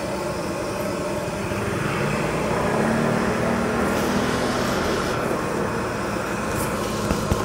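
Steady road traffic noise, with a passing vehicle's engine hum growing louder in the middle and easing off. A short knock near the end.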